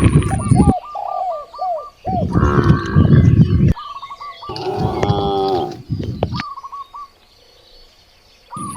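Cattle mooing: three loud, drawn-out calls about two seconds apart, with birds chirping in a quick repeated pattern between the moos, then a quieter stretch near the end.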